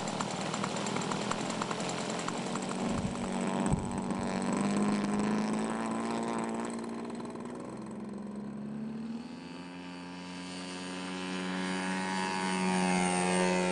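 Small propeller-driven drone aircraft's engine running just after being started. Its pitch rises and falls as the throttle changes, drops to a steadier note about ten seconds in, and grows louder near the end.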